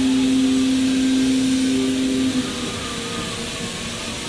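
5-axis CNC router spindle running as it carves EPS foam: a steady whine over a hiss. The strongest tone in the whine drops out a little over halfway through, and the sound gets slightly quieter.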